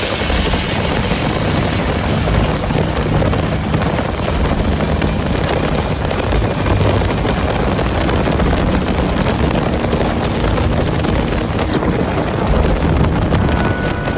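Turbocharged long-tail racing boat engine running flat out at speed. A steady, loud engine note mixes with rushing wind and water noise.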